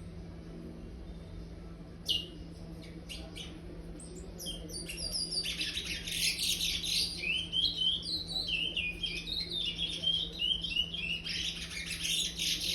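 Five-month-old chestnut-bellied seed finch (curió), still a brown juvenile, singing the praia song style: a few scattered high chirps about two seconds in, then a fast, continuous run of high notes from about five seconds on.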